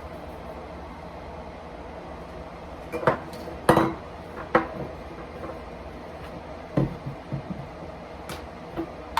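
A handful of short clinks and knocks of hard kitchen items being handled and set down, the loudest about four seconds in, over a steady faint hum.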